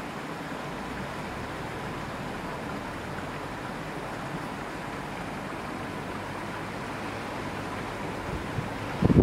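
Strong wind blowing as a steady rushing noise, growing louder near the end as gusts start to hit the microphone.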